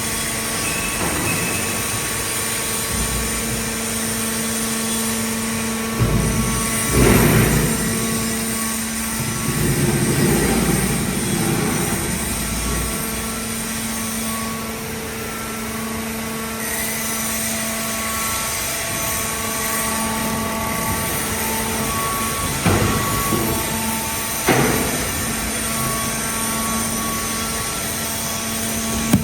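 Hydraulic aluminium-can baler running: the steady hum of its hydraulic power unit, with a few short clanks from the press, two close together about six to seven seconds in and two more past twenty seconds.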